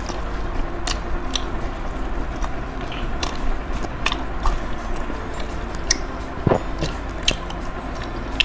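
A person chewing a mouthful of mozzarella cheese corn dog close to the microphone, with irregular mouth clicks and smacks and a louder one about six and a half seconds in.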